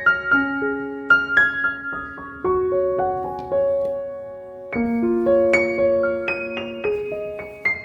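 Background music: a gentle solo piano playing slow arpeggiated chords.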